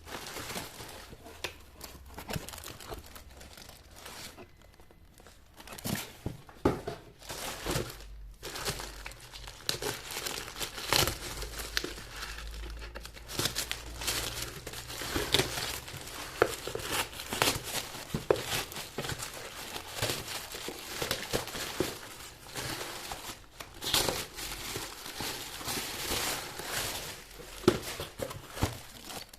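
Shoe packaging being unwrapped by hand: irregular crinkling and rustling, with a brief lull a few seconds in.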